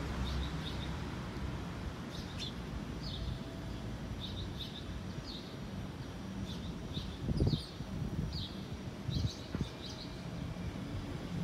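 Small birds chirping, short high chirps repeated at irregular intervals over steady outdoor background noise. A few dull thumps sound about seven and a half and nine seconds in.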